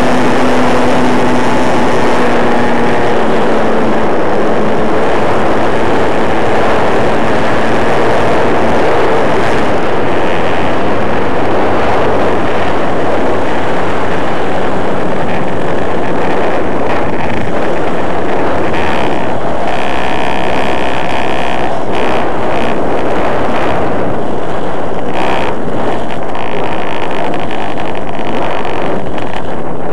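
Model airplane's OS 40 glow engine and propeller running in flight, picked up by a small camera microphone on the airframe, loud and mixed with wind rush. The engine note shifts several times.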